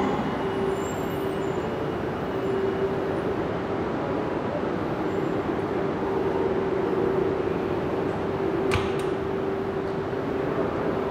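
E2-series Shinkansen train moving slowly along the platform: a steady, even running hum with one constant tone through it. A single sharp click comes about nine seconds in.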